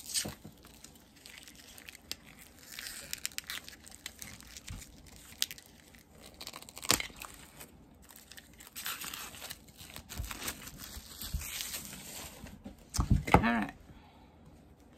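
Plastic wrapping crinkling and tearing in short, irregular bursts as it is peeled off a collectible soda can. A short, wavering cry near the end is the loudest sound.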